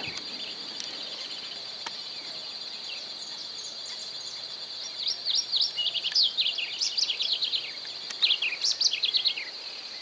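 Masked yellowthroat (arañero cara negra) singing a rapid, jumbled series of high notes from about halfway through, over a steady high insect drone.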